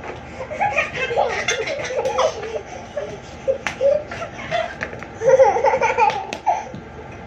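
Young children laughing in bouts, loudest about five seconds in, with a few sharp knocks among the laughter.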